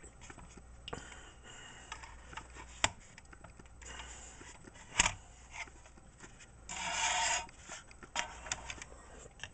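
Plastic scale model car body handled and turned over on a wooden tabletop: light rubbing and small clicks, two sharp knocks about three and five seconds in, and a louder scraping rub a little before the end.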